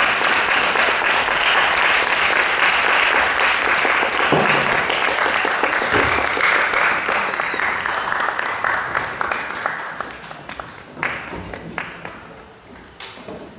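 Audience applauding in a hall, the clapping thinning out and dying away over the last few seconds, ending in a few scattered claps.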